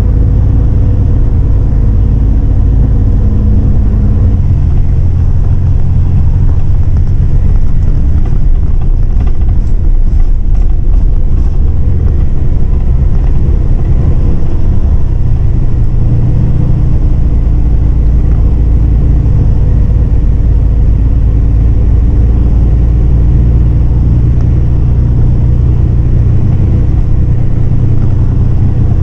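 MAN 18.350 bus's diesel engine and road noise heard from inside the cabin on the move, a loud steady low drone. The engine note shifts about halfway through, and there are a few light rattles a little before that.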